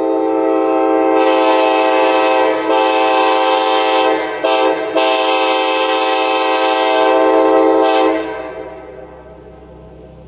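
Nathan AirChime K5LA five-chime locomotive air horn, with a restrictor in its number 5 bell, sounding one long, loud blast of its chord. The blast dips briefly twice, about 2.5 and 4.5 seconds in, then cuts off and dies away about 8 seconds in, leaving a low steady rumble.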